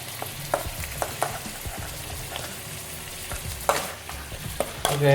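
Weaver ants and garlic sizzling in a frying pan as they are stirred, the spatula scraping and clicking against the pan at irregular moments.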